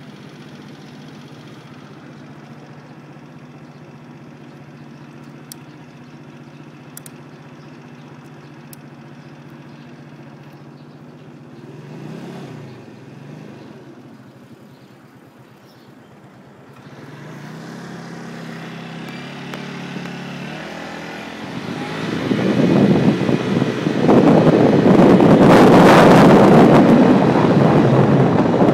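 A 50cc scooter engine idling steadily, with a short rise in revs about twelve seconds in. It then revs up and pulls away. From about two-thirds of the way through, loud wind noise on the microphone as the scooter rides along covers the engine.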